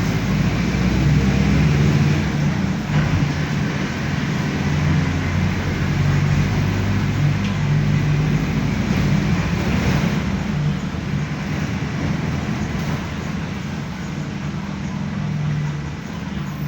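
Diesel engine of a Mercedes-Benz OF-1519 city bus running under way, with road noise; the engine note is steady with small rises and falls, easing slightly near the end.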